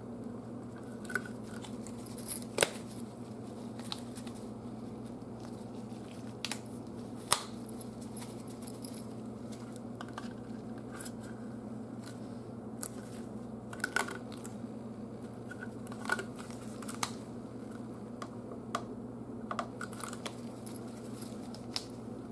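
Irregular light clicks and taps of a hand tool and fingers working a plastic turn signal housing while softened butyl sealant is picked off it. A steady low hum sits underneath.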